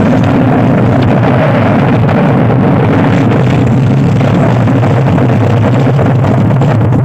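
Miniature sound system with 12- and 15-inch speakers playing bass-heavy DJ music at very high volume, the recording overloaded into a dense, steady, distorted wall of sound.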